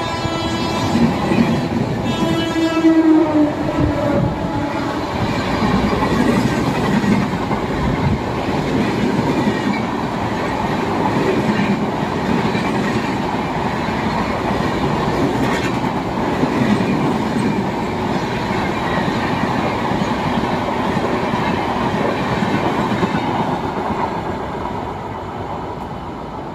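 A train passing on the line. Its locomotive horn sounds for the first three seconds or so, then the wheels clatter and rumble steadily over the rails. The sound fades near the end.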